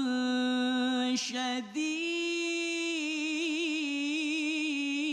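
A male Quran reciter chanting solo, drawing out long melismatic notes. About one and a half seconds in there is a brief break, then a new held note that wavers in a quick ornament.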